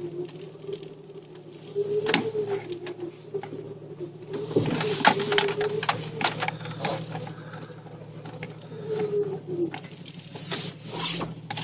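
Jeep engine running at low speed, heard from inside the cab: a steady low hum with a wavering higher drone on top, and irregular knocks and rattles as the vehicle rolls over rough forest ground.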